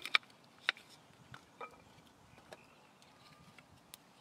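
Dry split kindling sticks knocking against each other as they are laid crosswise over a bed of coals: a few sharp wooden clacks, the loudest two right at the start and another under a second in, then scattered lighter ticks.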